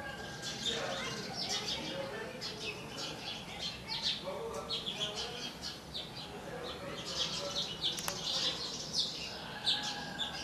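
Many small birds chirping and twittering in quick, overlapping calls throughout.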